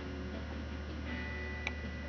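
Quiet room tone: a steady low hum with one light click near the end.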